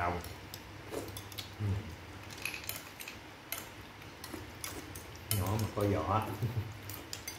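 Metal spoons clinking and scraping against ceramic bowls in short, irregular clicks while people eat. A voice briefly speaks about two-thirds of the way in.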